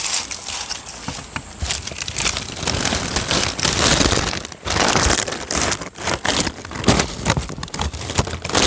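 Close, continuous rustling and crinkling with many scattered crackles and knocks, from a hand working in the debris at the bottom of a wooden beehive.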